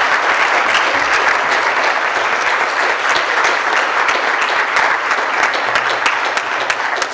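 Audience applauding, a dense steady patter of many hands clapping that begins to thin out into separate claps near the end.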